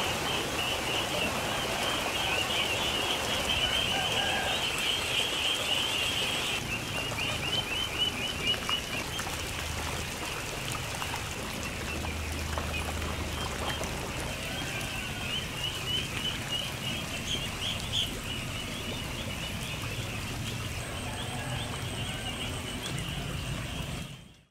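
A large flock of young ducks peeping nonstop in a dense chorus of high chirps, with water splashing as they dabble in the shallows. The sound fades out near the end.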